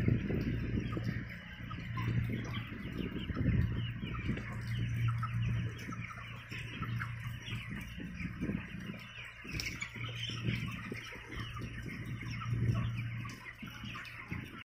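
A large flock of chickens inside a poultry shed, many birds chirping and clucking at once in a dense, continuous chatter. A low hum rises and falls underneath.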